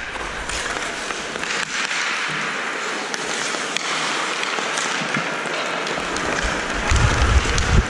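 Steady hiss of ice skates scraping and gliding on the rink during a hockey game, with a few sharp clicks. A low rumble of wind on the helmet-mounted camera's microphone comes in near the end.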